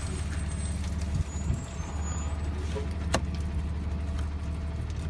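A single sharp click, as a plastic trim clip is popped loose, over a steady low rumble.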